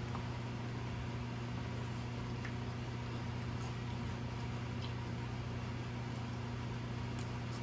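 A steady low mechanical hum, like an appliance or fan running in a small room, with a few faint ticks.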